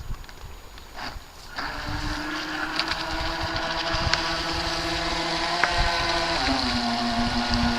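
Electric RC speedboat's motor running: quiet at first, then a steady whine comes in about a second and a half in and drops a little in pitch near the end.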